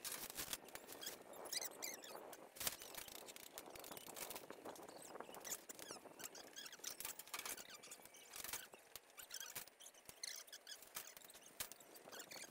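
Irregular light clicks and knocks of metal pieces being handled on a light-gauge steel frame, with faint high chirps in between.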